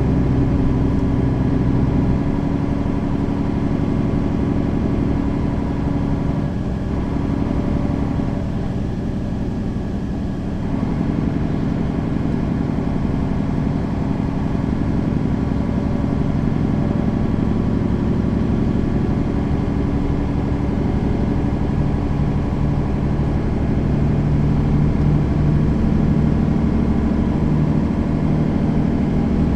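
Mercedes-Benz Citaro facelift city bus engine running steadily as the bus drives. Its note shifts about two seconds in, eases off briefly around eight to ten seconds in, and builds again towards the end.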